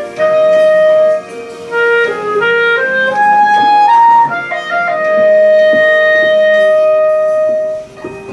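Solo clarinet playing a melody over quieter backing music. The clarinet plays a run of short notes, then holds one long note that ends near the close, leaving the accompaniment going on its own.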